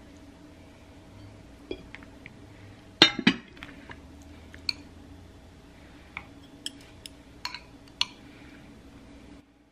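A glass lid set down on a glass bowl with a loud clatter about three seconds in, then metal chopsticks clicking several times against a glass container as kimchi is lifted out. A faint steady hum runs underneath.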